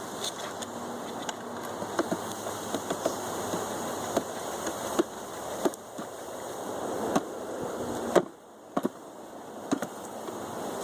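Honeybees buzzing as a package of bees is shaken out into a hive, with a series of irregular sharp knocks and thumps from the package being handled.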